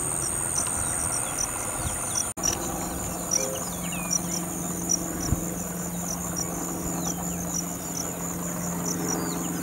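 Insects chirping in a regular, high pulsing rhythm over a steady high-pitched buzz, with a low hum underneath. A few faint, short, downward-sliding bird chirps come through. The sound drops out for an instant a little over two seconds in.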